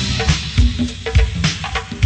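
Live funk band playing: a steady drum-kit beat with bass drum and snare, bass and short stabbing instrument notes.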